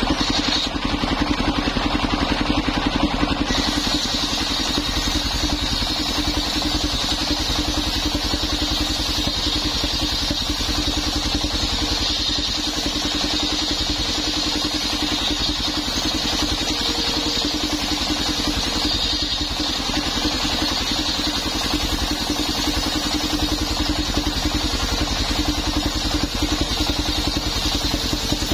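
The engine of a mobile circular sawmill running steadily and turning the circular saw blade by belt, while the blade rips a plank from an old coconut-wood log. A high steady sound of the blade cutting joins the engine about three and a half seconds in.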